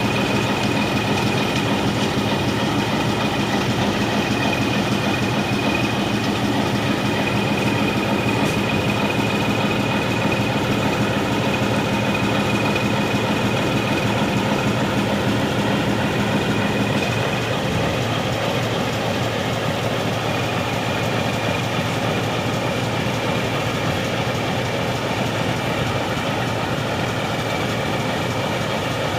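YDM4 diesel locomotive's six-cylinder ALCO 251 engine idling steadily, with a thin high whine over the engine note. About halfway through, the low hum eases and the sound gets a little quieter.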